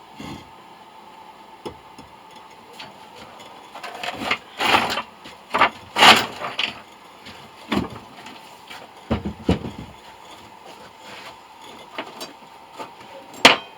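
Irregular knocks and scraping handling noises, busiest in the middle, over a faint steady hum.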